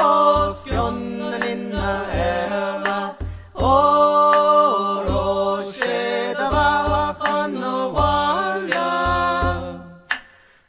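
A Gaelic song sung in a chant-like style over a steady low drone and a regular drum beat. The music drops out briefly near the end.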